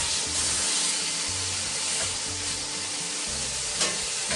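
Pork steaks searing in a very hot wok: a steady, dense frying sizzle, with a single sharp clink about four seconds in.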